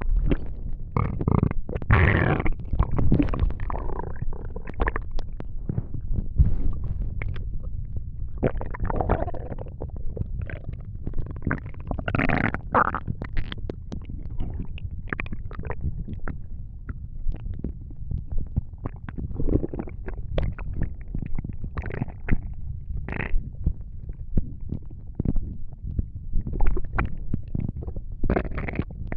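A person's stomach gurgling and rumbling: a low rumble with many irregular short gurgles and squeaks.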